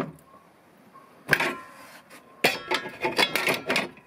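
Blue enamel plates clinking and clattering against one another and the wooden rack as they are stowed: a sharp clink at the start, another just over a second in, then a quick run of rattling clinks for about a second and a half.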